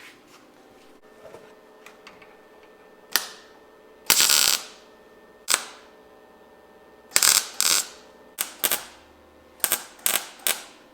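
Hammer striking the truck's sheet-metal body panels: about a dozen sharp, irregular metallic knocks, some with a short ring, and a longer loud burst about four seconds in.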